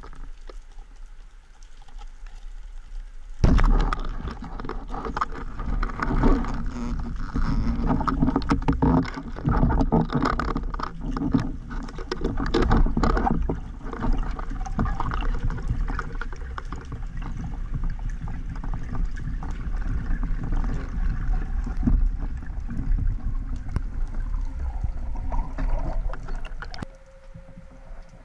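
Heard underwater: a speargun shot with a sharp knock about three and a half seconds in, then a long stretch of churning water, bubbles and repeated knocks and clatter as a speared grouper struggles on the spear and is hauled in. The commotion drops off suddenly near the end.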